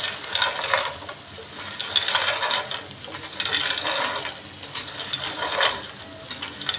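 Spoon stirring uncooked fusilli with chicken pieces in a pot: the hard, dry pasta rattles and scrapes against the pot in repeated strokes.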